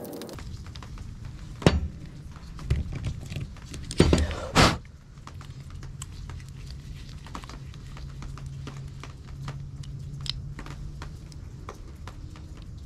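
Handling of tools and small chainsaw carburetor parts on a workbench: scattered clicks and a few sharp knocks, the loudest two about four seconds in, over a steady low hum.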